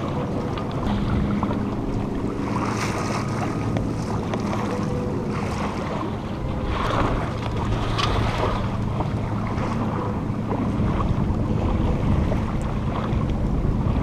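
Wind buffeting the microphone and water washing along a small sailboat's hull, with a few short rustles about a third and half way through.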